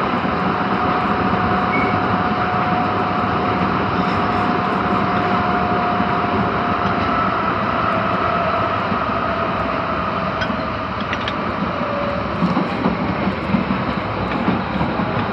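Interior running sound of an Osaka Metro Tanimachi Line 22 series subway car in the tunnel: steady rumbling wheel and track noise with a motor whine that slowly falls in pitch over the second half, and a few sharp clicks near the end.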